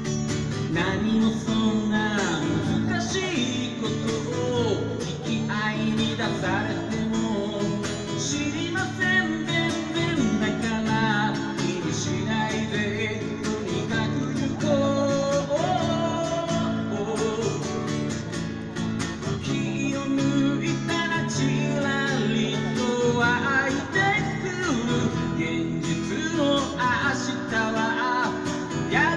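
A man singing a song while playing an acoustic guitar.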